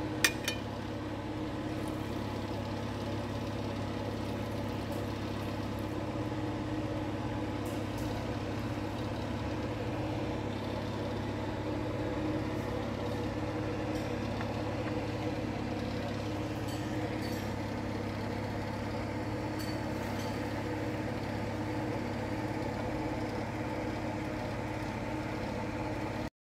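A steady mechanical hum, like a motor running, with a couple of sharp clicks right at the start.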